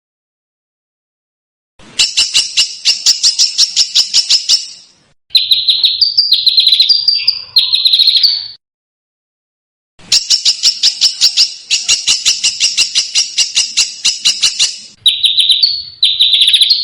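Songbird calls in fast, harsh runs: quick series of sharp repeated notes, about six a second, alternating with a few longer, rasping notes, after a short silence at the start and with another brief pause midway.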